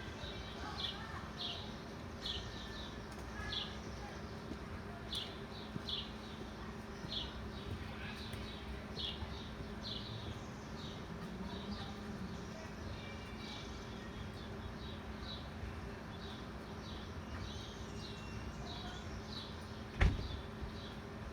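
A small bird chirping over and over, short high chirps about one or two a second, over a steady low hum. A single sharp knock near the end.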